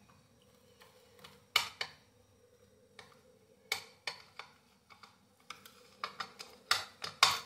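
Steel spoon clinking and scraping against a ceramic bowl while stirring a dry spice mix: irregular sharp clinks, several in quick succession near the end.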